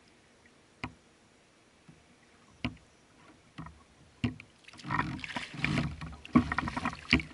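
A few sharp knocks on a kayak, then, from about five seconds in, loud gusts of wind buffeting the microphone.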